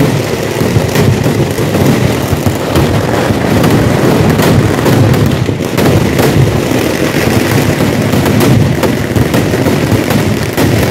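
Fireworks barrage: aerial shells and firecrackers going off in rapid, overlapping bangs without a break, loud throughout.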